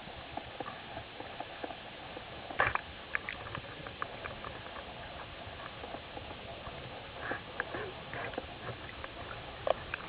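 Underwater ambience through a camera housing: a steady hiss with irregular sharp clicks and crackles scattered through it, two louder clicks about two and a half seconds in and near the end.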